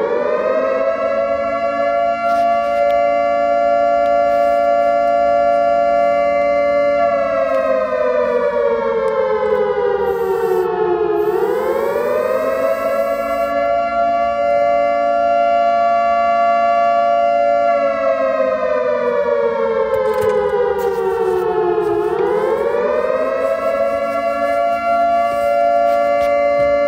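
Air-raid siren wailing: the pitch climbs as it starts, holds steady for about seven seconds, slides slowly down for about four seconds, then swoops back up, and the cycle repeats twice.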